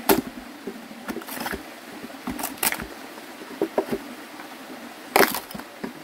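Axe striking a hollowed log: irregular knocks and cracks as small pieces of wood are split out, with a loud blow a little past five seconds in.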